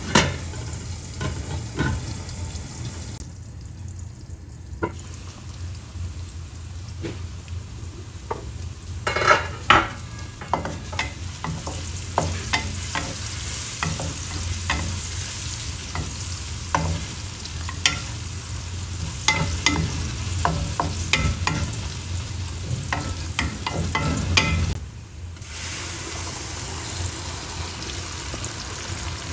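Sliced onions sizzling as they fry in oil in an aluminium wok, browning, with a spatula scraping and knocking against the pan as they are stirred.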